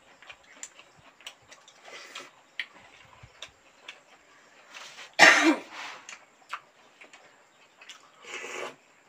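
People eating by hand at close range: small mouth clicks and chewing throughout, a loud cough about five seconds in, and a shorter breathy puff of air near the end.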